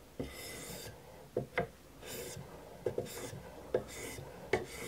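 Abrasive sharpening stone drawn in strokes along the edge of an M398 steel knife blade on an angle-guided sharpener, about one rasping stroke a second, with short clicks between strokes. The edge is being worked to remove a stubborn burr.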